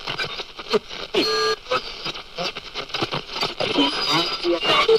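A choppy collage of clipped voice fragments with short beeps and brief held tones, cutting in and out every fraction of a second, like a radio being tuned across stations. It is the sound-effect intro to a hip-hop track.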